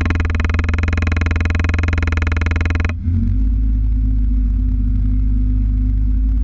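Vehicle engine running with a strong, even note, then about halfway through its higher overtones drop away suddenly, leaving a deep low rumble.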